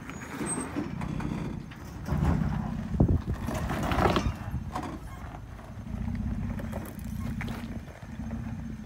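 Toyota Tacoma pickup crawling slowly over loose rocks: the engine rumbles low and swells and eases with the throttle, while tyres crunch and rocks knock under it. The knocks and engine are loudest about three to four seconds in.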